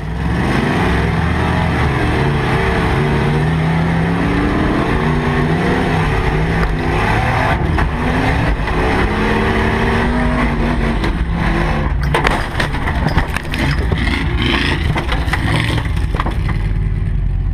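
Jeep Grand Cherokee engine revving up and down hard as the truck races over sand, heard from inside the cab. About twelve seconds in comes a cluster of sharp knocks and clatter as the truck rolls over and its windshield shatters, followed by a steady low rumble.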